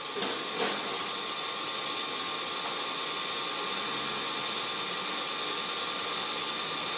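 Oertzen E1000 ultra-high-pressure cleaner running steadily with its spray lance shut off: a steady mechanical hum with a high whine. A couple of light knocks come in the first second.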